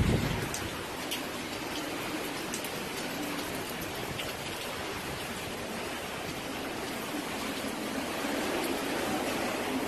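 Heavy wind-driven hurricane rain: a steady, even hiss of downpour, with a few faint ticks of drops.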